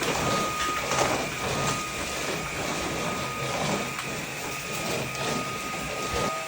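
HouseUp robot vacuum cleaner running: a steady hiss of suction with a thin high whine from its motor.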